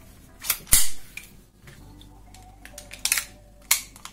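Ruger Mark IV 22/45 Lite .22 pistol being handled: a few sharp metallic clicks and clacks of its parts working. The loudest comes just under a second in, and two more follow near the end.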